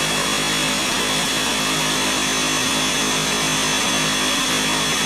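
Countertop blender motor running steadily, mixing Oreo cookies into a mint milkshake: an even rush of noise with a steady high whine over it.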